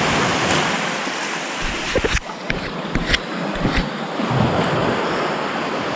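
Sea waves washing and surging in a small rocky cove, a steady rushing wash. A few short knocks and rubs of handling noise on the camera come between about two and four seconds in.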